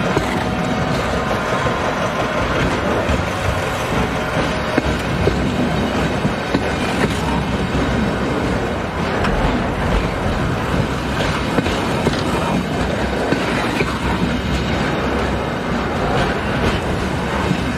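Loaded container flat wagons of a freight train rolling past close by: a steady rumble of steel wheels on rails, with scattered clacks as the wheels cross the rail joints.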